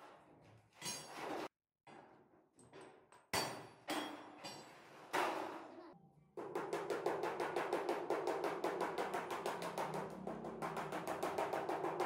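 A wooden mallet knocking on a thin steel sheet laid over a steel rail, bending over its edge. A few separate knocks, then from about halfway a fast, even run of light taps, about eight a second.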